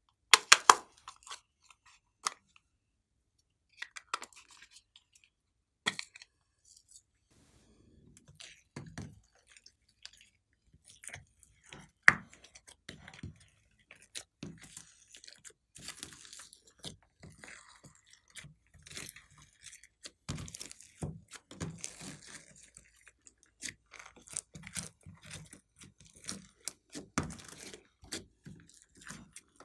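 Slime being kneaded and folded by hand in a glass tray, squishing with a stream of small crackles and pops. There are a few sharp clicks near the start.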